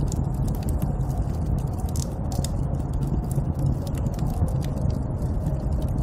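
Snowstorm wind blowing in a steady, dense low rumble, with many small crackling clicks scattered through it.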